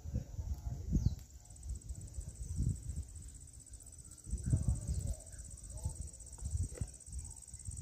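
A steady, high-pitched insect trill, growing stronger about a second in, over irregular low rumbles of wind buffeting the microphone.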